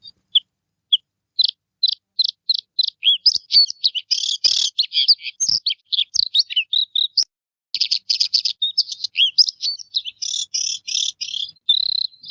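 A bird singing: a rapid, unbroken run of short high chirps, some sweeping down in pitch and some buzzy, pausing briefly about halfway through and then going on.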